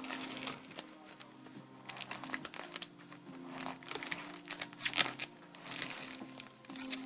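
Protective plastic film being peeled and rolled off an acrylic glazing sheet, crinkling and crackling in irregular bursts. Soft background music plays underneath.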